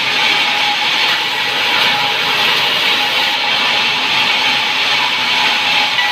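Power saw running steadily through pine wood, a continuous hissing cutting noise with a faint steady whine.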